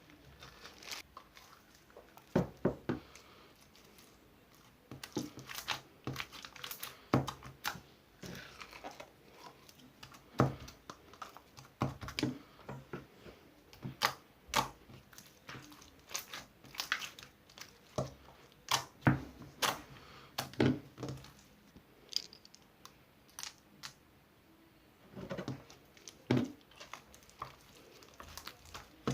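Slime being squeezed, stretched and pressed by hand, giving irregular sharp clicks and small air-bubble pops, with a couple of short quiet pauses.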